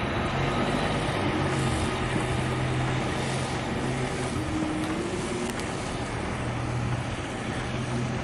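Vehicle engines idling: a steady low hum that rises slightly in pitch about four and a half seconds in, over a steady rushing noise.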